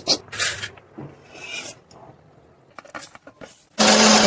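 Scattered clicks and scraping of kitchen utensils, then near the end a mixer grinder switches on with a sudden loud whirr and a steady hum, cuts out, and winds down with a falling tone.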